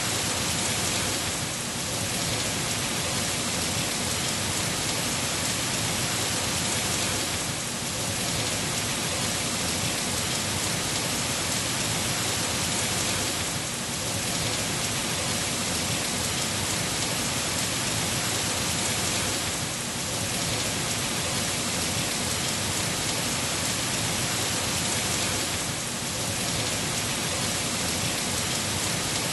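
Heavy rain falling steadily on trees and leaves: a dense, even hiss that eases slightly for a moment about every six seconds.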